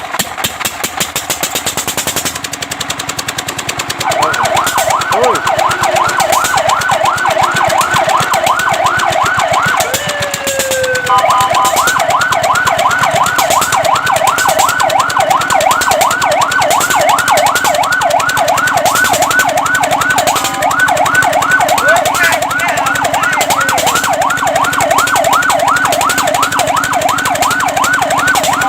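Fire truck siren sounding a fast yelp, its pitch sweeping up and down several times a second. About four seconds in it starts over a fast, even mechanical clatter. Around ten seconds in the pitch glides down briefly, and steady held tones then sound under the continuing yelp.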